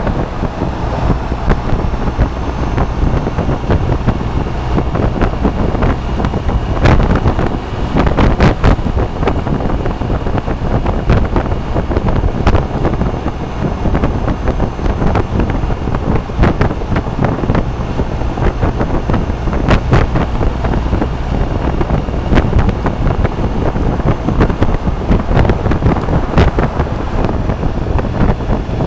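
Wind buffeting the microphone of a Suzuki Burgman 650 maxi-scooter at about 60 mph, over the steady rumble of its engine and the road. A few sharp knocks break through now and then.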